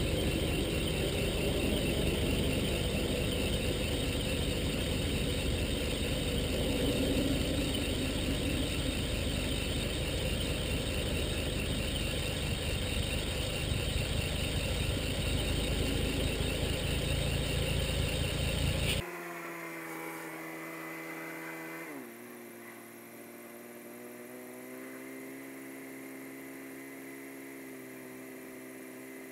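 Engine idling steadily with the hood open, kept running for a combustion-leak block test for a leaking head gasket or cracked block. About 19 seconds in it cuts off suddenly to a quieter steady hum of several pitched tones, which drop in pitch about three seconds later.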